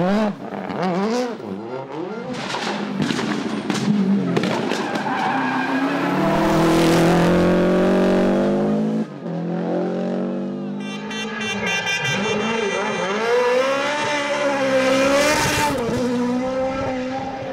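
Rally car engines revving hard, pitch swinging up and down through gear changes and lifts, with the loudest stretch held at high revs. There is a sudden cut about nine seconds in, and then another car's engine revs up and down.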